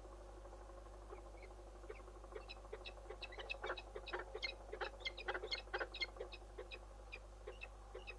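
Peregrine falcon giving a rapid run of short, sharp chipping calls, thickest in the middle and thinning towards the end, over a steady electrical hum.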